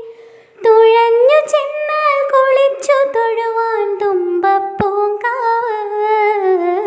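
A woman singing a Malayalam Onam song solo and unaccompanied, in long held notes that slide and waver in pitch, after a brief break about half a second in.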